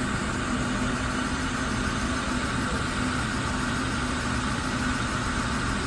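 Steady mechanical hum, like an engine or machine running at idle, with a constant low drone and a higher steady whir that do not change.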